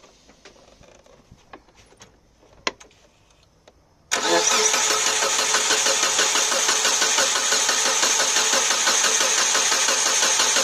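A few faint clicks, then about four seconds in a Mitsubishi Lancer IX engine starts cranking steadily on its starter motor without firing, because the ignition coils are unplugged. The cranking turns the power steering pump to push old fluid out through the return hose.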